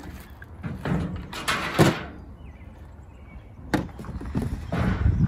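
A few sharp clicks and rustles as diagonal cutters snip plastic zip ties off the mower's handlebar and the old drive cable is worked free; the loudest click comes a little under two seconds in.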